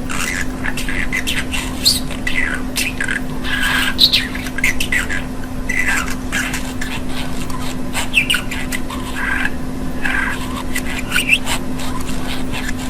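Budgerigar chattering and warbling in quick runs of chirps and squawks, over a steady low hum.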